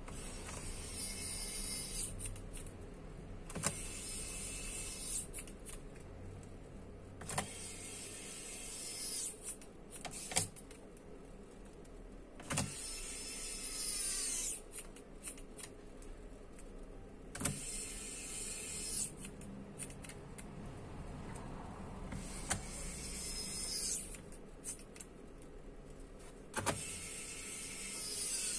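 Small electric screwdriver whirring in short bursts of about a second, about seven times, driving screws back into the laptop's case, with sharp clicks between the bursts.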